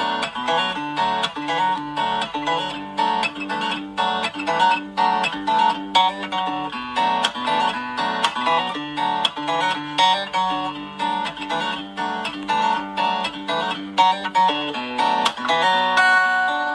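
Background music: a plucked guitar playing a tune of quickly picked notes.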